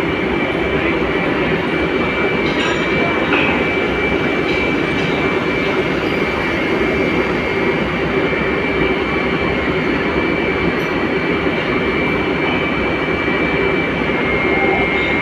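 Steady loud machinery noise of a working iron foundry, with a constant high-pitched whine over it.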